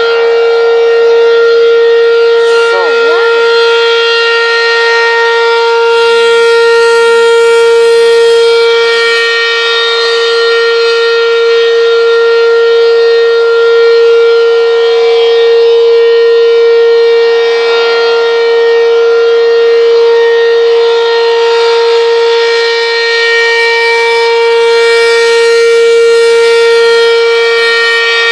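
Outdoor tornado siren sounding a loud, steady tone that holds one pitch, with strong overtones.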